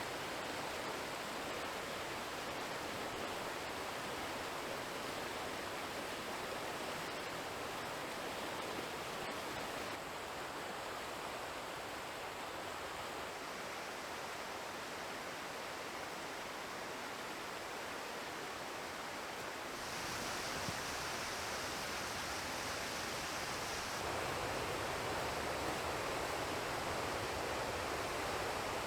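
Steady rush of water from a winter creek waterfall, its tone changing abruptly three times.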